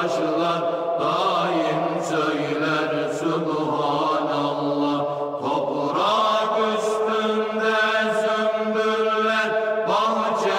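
Unaccompanied Turkish Sufi hymn (ilahi) sung in a chanting style, with long held notes that glide between pitches and no instruments.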